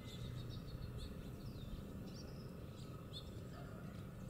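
Birds chirping: short, high, faint calls about twice a second over a low, steady background rumble.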